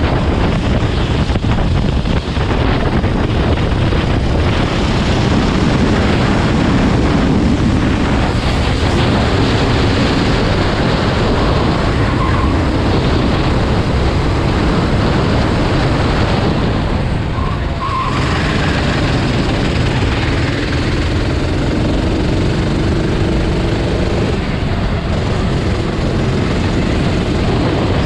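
Racing engines running continuously and loudly, with an engine note rising now and then as vehicles accelerate.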